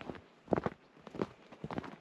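Footsteps of a person walking on a trail, about two steps a second.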